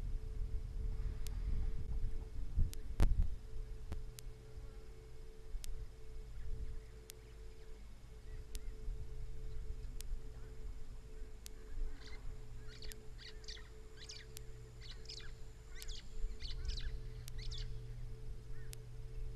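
A bird giving a quick series of high, sharp calls for about five seconds, starting about twelve seconds in. Underneath is a steady low outdoor rumble with a faint hum.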